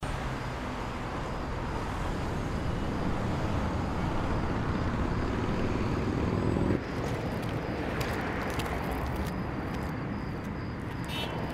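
City street traffic: a steady rumble of cars on the road. The sound changes suddenly about two-thirds in, and a few sharp clicks and a brief high tone follow near the end.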